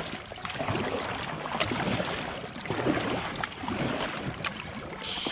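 Double-bladed kayak paddle dipping and splashing into calm sea water, stroke after stroke.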